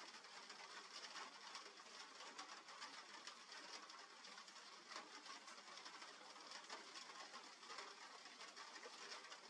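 Faint rain pattering: a steady light hiss dotted with many small drop ticks.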